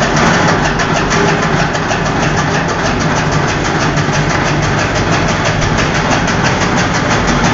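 Motor-driven chaff cutter (toka machine) running and chopping dry straw fodder, a steady machine hum with a rapid, even clatter of blade strokes about eight a second.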